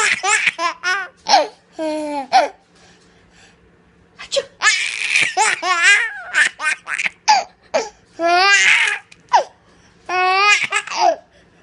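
A baby laughing hard in three bouts of breathy, squealing laughs separated by short pauses.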